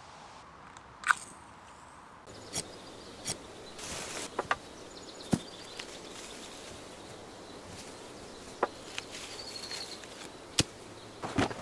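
Wooden sticks knocking and rubbing together as they are held and lashed with cord, heard as a string of separate sharp knocks over faint outdoor background. A sharp click about a second in stands out as the loudest.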